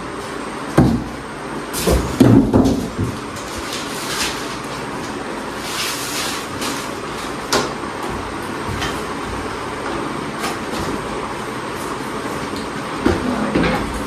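Unpacking noises from an air conditioner's indoor unit and its cardboard box and plastic wrapping: scraping, rustling and a few sharp knocks, the busiest spell about two seconds in and another near the end, over a steady background hiss.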